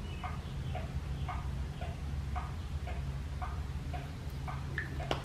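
Even tick-tock ticking, about two ticks a second, alternating a lower and a higher tick like a pendulum clock, over a steady low hum. A sharper single click comes near the end.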